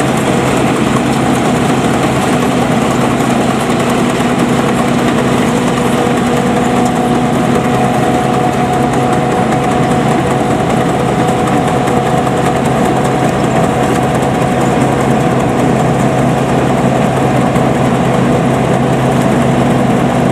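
Homemade Vietnamese rice combine harvester running steadily while it cuts rice: a constant engine and machinery hum holding several fixed tones, with no change in pace.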